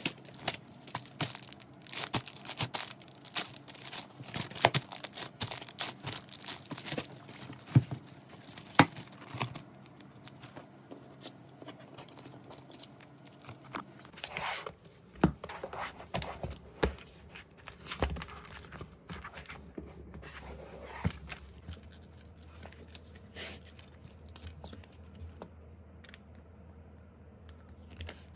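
Plastic packaging and photocard sleeves being handled: crinkling and rustling plastic with many sharp taps and clicks of cards. The handling is busiest in the first ten seconds, eases off for a few seconds, then picks up again about halfway through.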